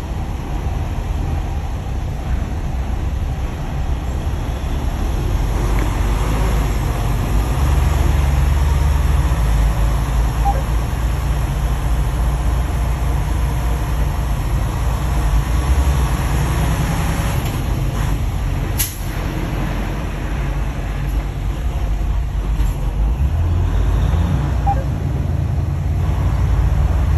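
Steady low rumble of a vehicle's engine and road noise while moving slowly in traffic, with one sharp click about two-thirds of the way through.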